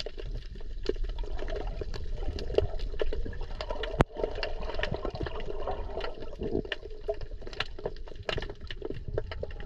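Wrasses and sea bream feeding, heard underwater: irregular sharp clicks and crunches, several a second, over a low water rumble. One click about four seconds in stands out as sharper than the rest.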